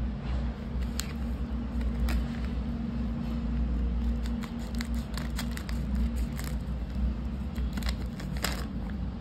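Crinkling and crackling of a clear plastic bag being snipped with scissors and pulled open by hand, the crackles thickest from about halfway to near the end. A steady low hum runs underneath.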